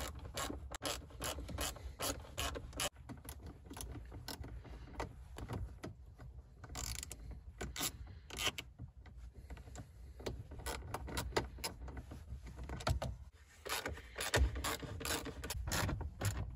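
Hand socket ratchet clicking as it turns 10 mm bolts in, in rapid runs of pawl clicks with short pauses between strokes.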